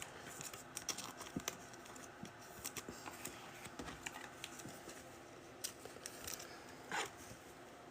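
Faint clicks and light rustling of trading cards and their plastic packaging being handled, with a slightly louder rustle about seven seconds in.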